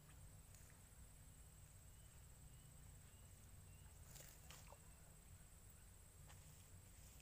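Near silence: faint outdoor ambience with a low rumble, a thin steady high whine, and a couple of soft clicks about four seconds in.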